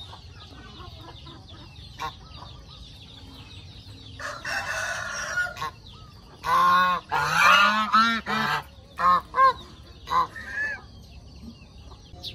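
Domestic geese honking: one harsh, drawn-out call about four seconds in, then a run of loud honks a couple of seconds later, and several short single honks after it.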